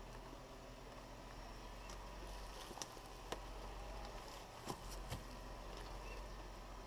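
Jeep Rubicon crawling slowly off-road, its engine running low and steady, with a few sharp knocks and snaps as the tyres roll over rocks and logs.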